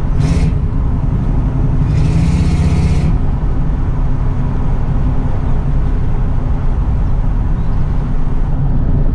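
1971 Chevrolet C10's V8 with dual Flowmaster-style exhaust, heard from inside the cab while cruising: a steady engine drone under road noise, with a brief louder rush about two seconds in.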